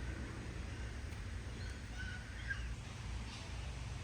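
A few faint bird chirps, clustered a little past the middle, over a steady low rumble.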